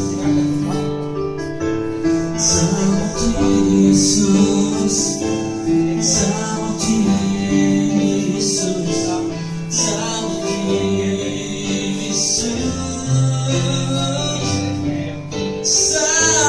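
Worship song: voices singing over held instrumental chords, with a steady beat of high percussion hits about once a second.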